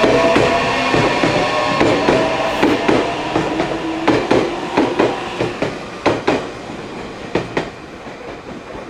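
Meitetsu 3300 series electric train running past: a steady electric whine that rises slightly in pitch over the first couple of seconds, then wheels clacking over rail joints in quick pairs, growing fainter toward the end.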